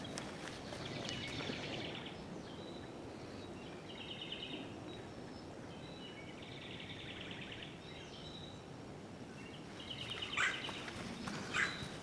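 Songbirds singing short, rapid trills every few seconds over the soft sound of footsteps on a dirt trail, with a few sharper, louder steps near the end.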